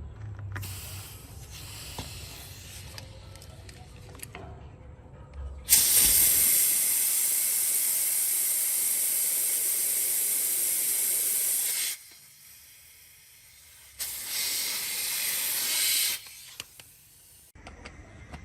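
Pressurised spray hissing in bursts: a fainter hiss with a low hum over the first few seconds, then a loud steady hiss for about six seconds, a short pause, and another loud burst of about two seconds.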